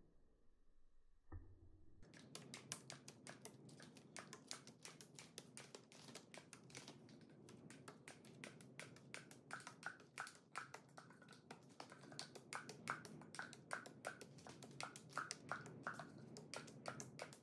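Faint rapid tapping and ticking, several taps a second, starting about two seconds in: paint spattering from a stick onto a canvas laid flat on the floor.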